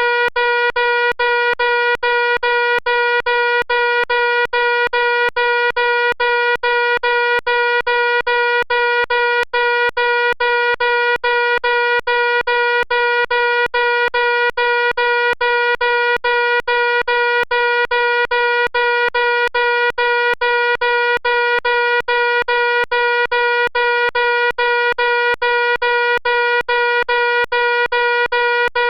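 Fire alarm sounding continuously and loudly: one steady, unchanging tone broken by brief regular gaps several times a second.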